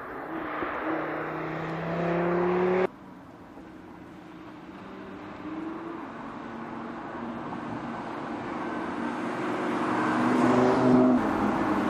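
Audi TT RS Roadster's five-cylinder engine accelerating, its pitch climbing, then breaking off suddenly about three seconds in. The car is then heard approaching, growing steadily louder, and passing close by about eleven seconds in, its pitch dropping as it goes past.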